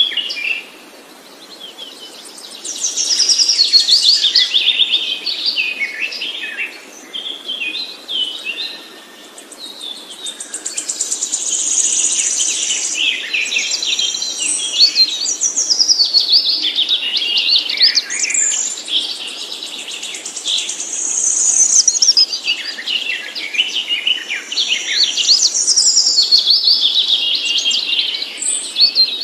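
Songbird singing long, varied phrases of rapid high chirps and trills, with short breaks about a second in and around nine seconds in.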